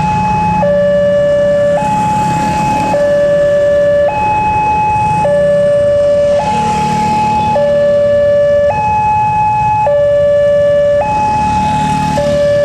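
Wantech railway level-crossing alarm sounding a two-tone hi-lo warning, switching evenly between a higher and a lower tone a little over once a second, the signal that a train is approaching.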